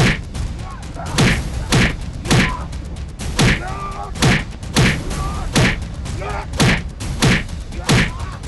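Film fight-scene punch sound effects: about eleven hard hits with a whoosh, roughly one every 0.7 s, with short grunts and groans between them.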